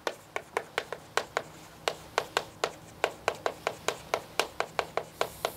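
Chalk tapping and scraping on a chalkboard as characters are handwritten: a rapid, irregular run of sharp clicks, about five a second.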